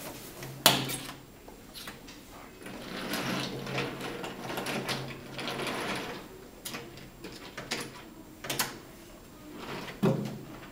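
Wooden toy trains and wooden track pieces being rolled and handled: a rattling run of wheels over the track in the middle, with a few sharp wooden clacks.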